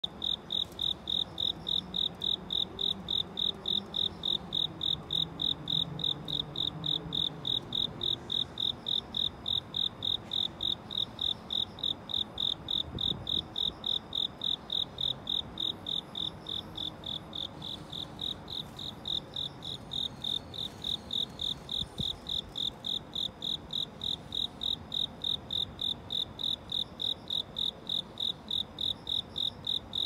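A cricket chirping in an even, unbroken rhythm of about three high-pitched chirps a second.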